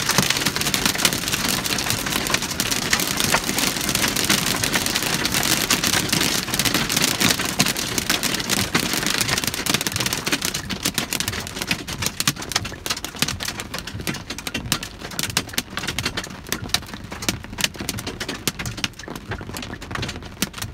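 Hail hitting a Kia Sportage's roof and windshield, heard from inside the cabin. A dense clatter of impacts thins after about ten seconds into separate ticks and grows quieter.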